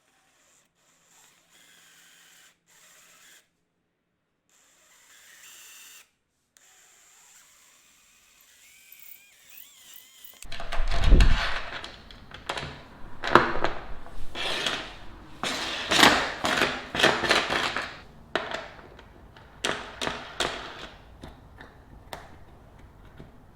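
Woodworking tool noise: about ten seconds of faint sounds, then a heavy thump followed by irregular bursts of scraping and knocking.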